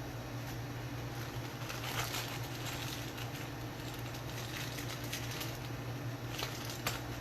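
Scattered small clicks and light scraping of a hand screwdriver driving self-threading pickup screws into a walnut bass body, over a steady low hum; the sharpest clicks come about two seconds in and near the end.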